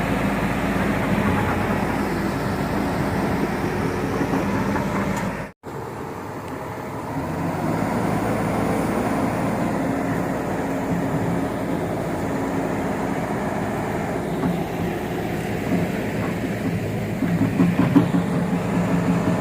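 Excavator's diesel engine running steadily under throttle. The sound cuts out for an instant about five and a half seconds in, then the engine is heard again, growing louder and rougher near the end.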